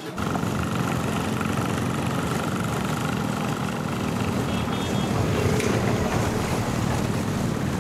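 Steady engine hum and road noise of a moving vehicle in street traffic.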